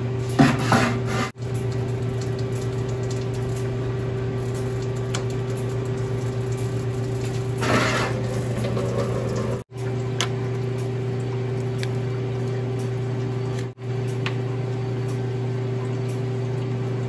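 A/C refrigerant recovery machine running with a steady hum while it pulls refrigerant out of the car's air-conditioning system. There are two brief noisy bursts, about half a second in and about eight seconds in, and the hum cuts out for a moment three times.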